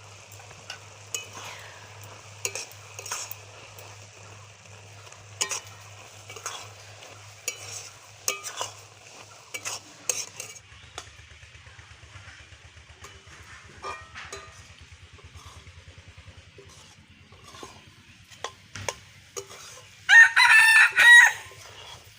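A spatula scraping and stirring carrot halwa in a pan, with irregular clicks against the pan and a light sizzle. About twenty seconds in, a rooster crows loudly for about a second and a half.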